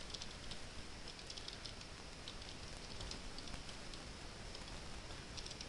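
Computer keyboard typing: light key clicks in quick, irregular runs over a steady hiss.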